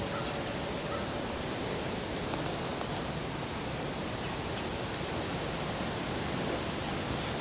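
Steady, even outdoor hiss of woodland ambience, with a few faint ticks about two and four seconds in.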